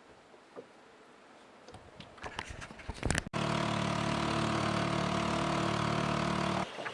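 Small 2-horsepower outboard motor running at a steady speed, cutting in abruptly about halfway through and stopping abruptly near the end. Before it come a few scattered clicks and knocks.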